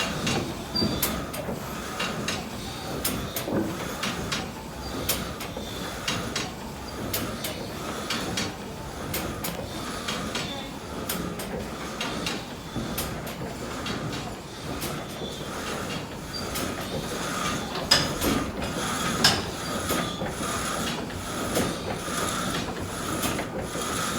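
Wooden machinery of a wind-driven sawmill running: the reciprocating saw frame and its ratchet feed give a regular rhythm of clicks and knocks, about one or two a second, as the log wagon is inched forward.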